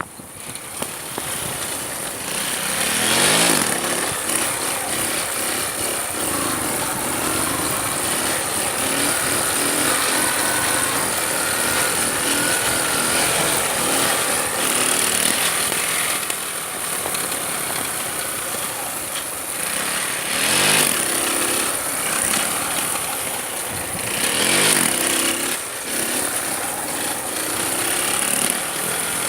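Motorcycle engine revving up and down several times while riding, with wind noise over the microphone.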